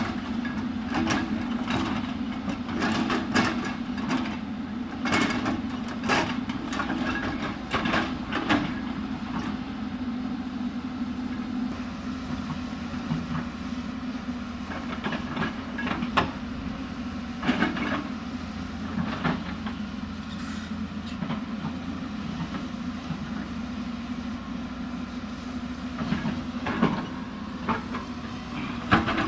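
Hyundai 220 excavator's diesel engine running steadily, with repeated sharp knocks and clatter as it digs, frequent in the first nine seconds and scattered after that.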